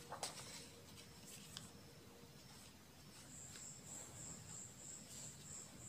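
Faint high-pitched chirping at one steady pitch, repeating about four times a second, starting a little past halfway. A few soft rustles and taps of a sheet of paper being handled near the start.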